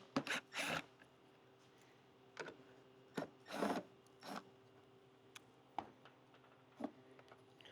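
Faint, scattered clicks and short scrapes of hands and tools working on a motorcycle fairing while the factory speaker is taken out.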